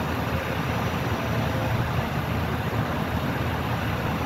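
Steady low rumble and rushing wash of the SS Badger car ferry's machinery and propeller-churned water as it docks.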